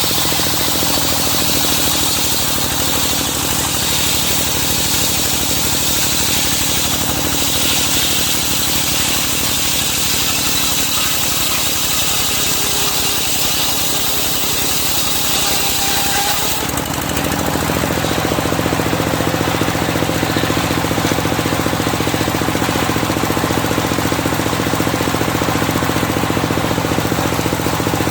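Engine-driven circular sawmill cutting through medang wood, with a steady high hiss over the engine's rapid chugging. About two-thirds of the way through the cutting noise stops abruptly and the engine and saw keep running on their own.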